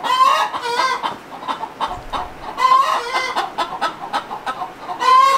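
Chickens clucking and calling, several birds at once, with longer drawn-out calls at the start and near the end.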